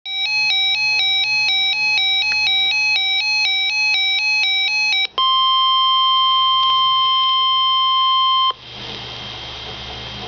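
Electronic alert tone switching between two pitches about four times a second for about five seconds. Then a steady, loud NOAA Weather Radio 1050 Hz warning alarm tone runs for about three seconds and cuts off suddenly, leaving the hiss and hum of a radio channel.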